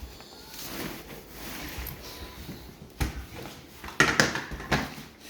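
Handling noises from a folding stroller being worked on: rustling with several sharp plastic-and-metal clicks and knocks, the loudest about four seconds in.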